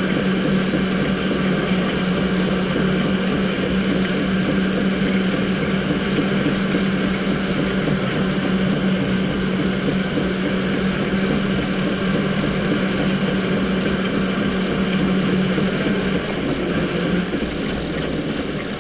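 Electric go-kart driving at speed: a steady motor hum over the rumble of the kart on the track. The hum fades out about three-quarters of the way through as the kart eases off.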